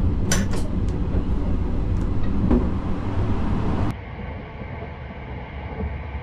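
Sunrise Express sleeper train running, a steady low rumble. In the first second, three sharp metallic clicks come from a shower-room door latch being worked. At about four seconds the sound changes abruptly to a quieter, duller rumble of the train running along the track.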